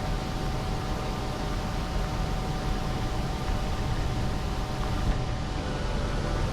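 Heavy harvest machinery running steadily: a constant engine and fan drone with a faint steady whine, and wind rushing over the microphone.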